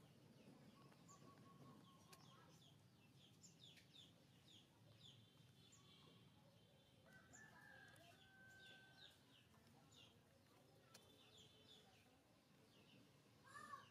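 Faint background of chickens and small birds: quick high chirps over and over, with a longer held call, like a distant crow, around the middle.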